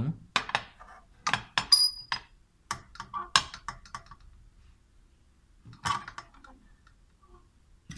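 Handling of a circuit board and tools on a work surface: a string of sharp clicks, taps and small clinks in the first few seconds, one of them ringing briefly, then a few more a couple of seconds later.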